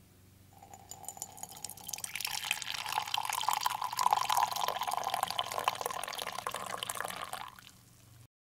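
Coffee poured in a steady stream into a ceramic mug, splashing, with the pitch of the filling mug rising slightly as it fills; the pour stops about seven and a half seconds in. A faint low hum lies underneath.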